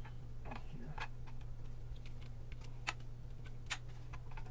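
Light, irregular clicks and taps of a TV main circuit board and its plastic parts being handled and seated onto locating pins in the TV's metal back panel, with a couple of sharper clicks toward the end, over a steady low hum.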